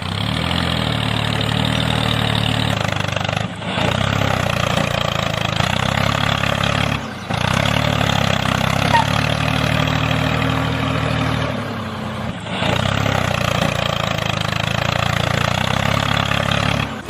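An engine running steadily, a low hum with a rattly noisy upper layer, dropping out briefly three times.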